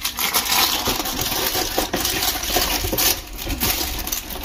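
Crinkling and tearing of a cereal box and its packaging as it is forced open, a dense run of crackles and rips.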